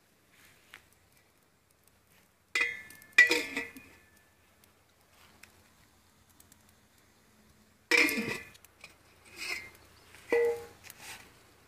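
A metal lid clanking against a metal cooking pot: a pair of sharp, ringing knocks, then after a quiet spell a few more near the end.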